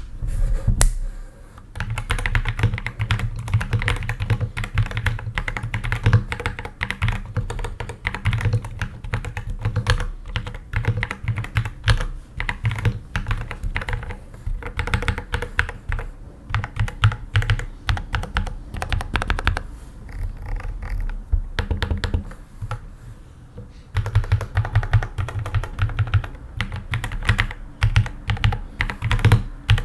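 Typing on a Keychron Q6 Ultra 8K full-size aluminium mechanical keyboard: a fast, continuous run of keystrokes with deep clacks, easing briefly twice about two-thirds of the way through.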